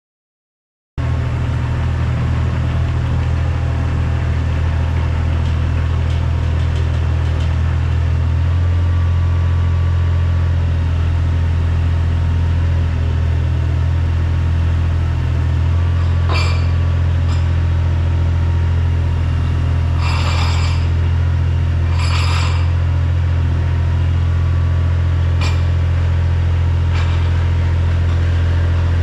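Engine of construction equipment running steadily, growing a little louder about eight seconds in, with a few short clanks or scrapes near the middle.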